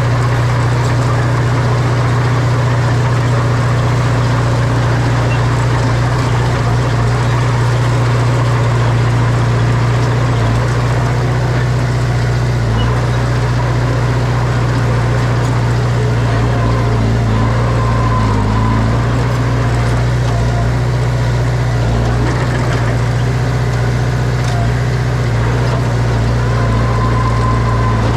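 Diesel engine of heavy earthmoving equipment running steadily with a deep, constant hum.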